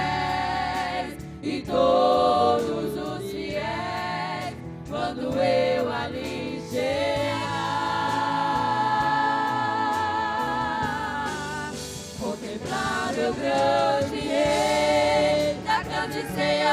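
Women's gospel choir singing a hymn, with a long held chord in the middle.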